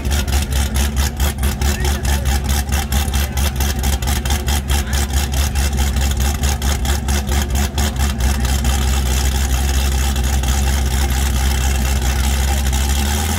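Big V8 of a Cadillac CTS-V coupe idling at the drag-strip starting line with a choppy, pulsing lope, about four to five beats a second. About eight seconds in it smooths into a steady, even run.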